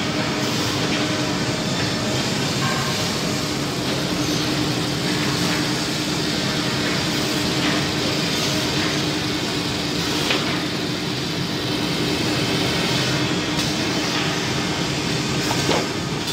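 CNC wood lathe running, its cutter shaving a spinning wooden spindle: a steady machine drone with a constant hum under a hiss of cutting, and a brief knock about ten seconds in and another near the end.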